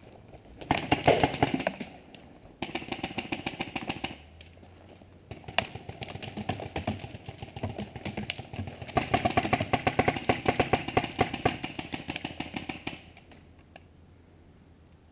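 Paintball marker firing rapid strings of shots, about ten a second, in several bursts with short pauses, falling quiet near the end.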